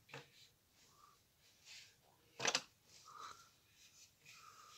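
Faint rustling and handling noises, with one short sharp knock about halfway through.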